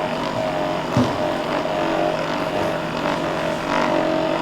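Electric percussion massage gun running with a steady motorised buzz as it works on the lower back, with one sharp knock about a second in.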